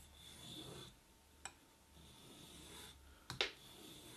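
Steel knife blade being stroked across the 2000-grit side of a wet whetstone: soft rasping strokes, three of them, with a few sharp clicks, the loudest about three seconds in.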